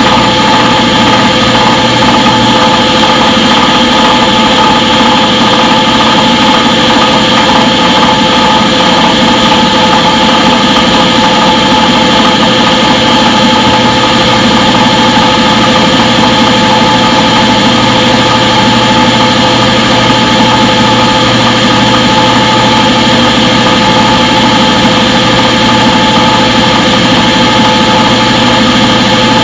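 Front-load washing machine in its spin cycle, motor and drain pump whirring steadily at a constant pitch.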